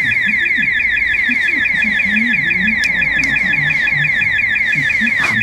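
Electronic building alarm sounding continuously: a rapid, even train of high-pitched falling sweeps that does not let up.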